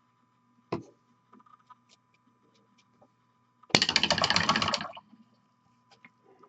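A sharp click about a second in, then a dense rattle lasting about a second: a dropper bottle of acrylic miniature paint being shaken before use.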